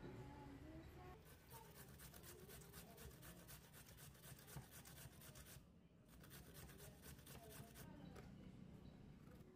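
Potatoes being grated on a metal box grater: faint, quick, regular scraping strokes, with a short pause about halfway through.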